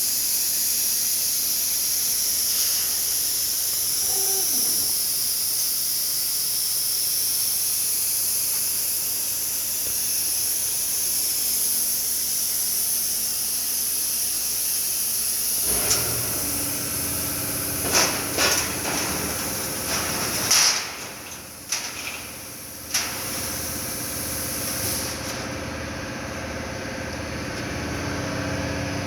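Steady high hiss of a CNC plasma cutter cutting. About halfway through it gives way to a motor running with a low hum, broken by several sharp knocks and a short dip in level.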